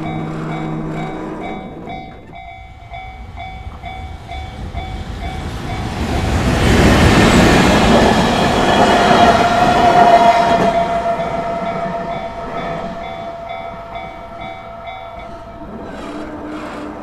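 Japanese railway crossing signal ringing with an even, rapid electronic clang while an electric train passes on the JR Tohoku Main Line. The train's rumble swells, is loudest about seven to ten seconds in and then fades. The crossing bell stops a couple of seconds before the end.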